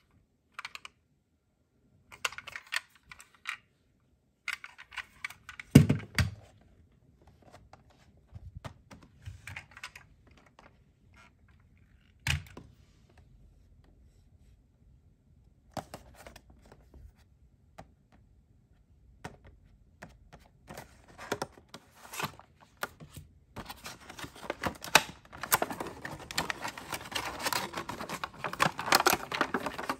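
Hands handling toy cars and their plastic packaging: scattered clicks and taps with a louder knock about six seconds in, then clear plastic blister packaging crinkling steadily over the last several seconds.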